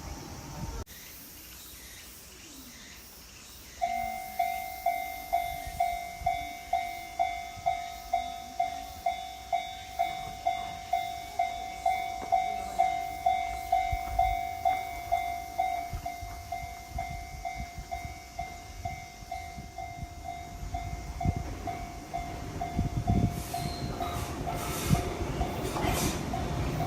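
Electronic level-crossing warning alarm of the Sotetsu type starts about four seconds in, a ringing tone repeating a little over twice a second. Partway through it drops to a lower volume, as the crossing is set to do once the barriers are down. Near the end a train approaches, its wheels rumbling and clicking over the rails.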